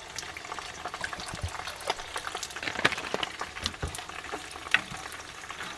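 Chicken frying in hot oil in a pan, sizzling with scattered small crackles and pops.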